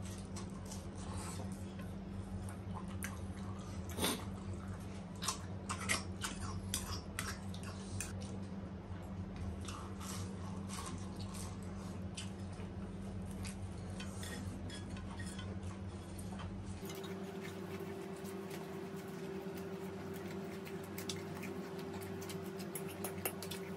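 Eating sounds: scattered small clicks and scrapes of a fork against a rice bowl and plate, with chewing, over a steady low electrical hum. About 17 seconds in the hum changes to a single higher steady tone.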